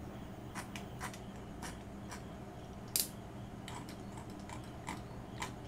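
Short, irregular scrapes of a tool scratching into watercolour paper to lift out highlights, with one louder stroke about three seconds in.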